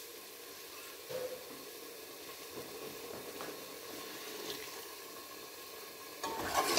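Onion-tomato masala with a little added water sizzling faintly and steadily in an aluminium pressure cooker, with a few small ticks. About six seconds in, a metal ladle starts stirring and scraping against the pot, louder.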